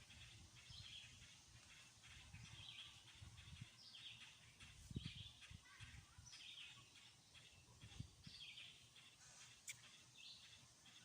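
Faint songbird chirps, short notes repeated about once a second, over a low background rumble.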